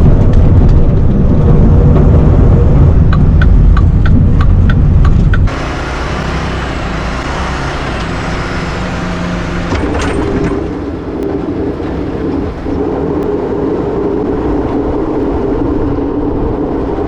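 Mack plow truck's diesel engine running, heard from the cab: a heavy low rumble with a quick series of clicks a few seconds in. About five seconds in it drops abruptly to a quieter, steady engine hum.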